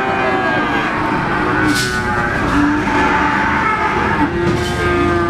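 Steady background din of a busy livestock market: vehicle engines running and voices in the distance, with no single sound standing out.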